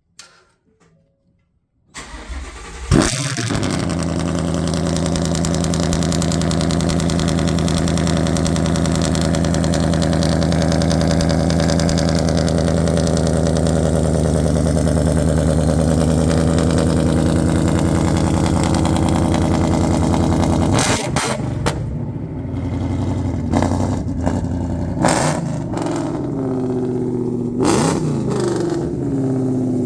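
An engine starting about two seconds in, catching with a loud burst, then running steadily. From about 21 seconds its note changes, with several sharp knocks and a pitch that falls and rises.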